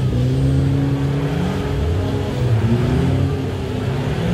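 An off-road 4x4 SUV's engine revs up and down as the vehicle works through deep mud, with its pitch wavering and rising and falling.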